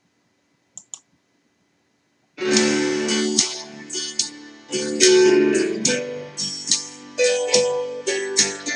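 Two faint clicks, then instrumental music begins about two and a half seconds in: sustained keyboard chords with sharp, regularly spaced accents.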